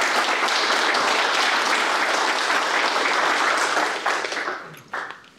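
Audience applauding a welcome, a steady round of clapping that dies away about four to five seconds in.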